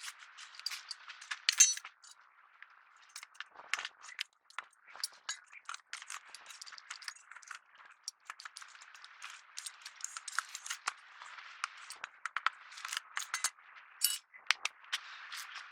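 Irregular light scraping, rattling and clicking of close-up handwork, a few sharp clicks standing out over a faint hiss.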